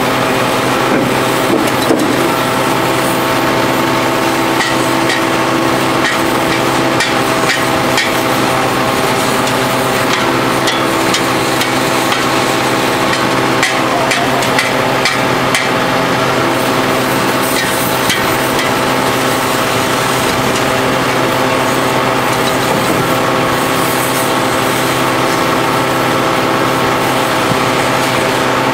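Hydraulic power unit running steadily, driving an H-beam hydraulic pile extractor, with scattered light knocks in the middle of the stretch.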